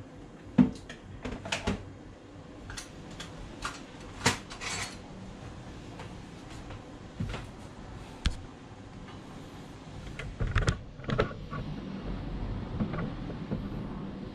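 Scattered knocks and clinks of dishes and utensils being handled at a kitchen counter and sink. The sharpest knock comes about half a second in, and a low rumble rises in the last few seconds.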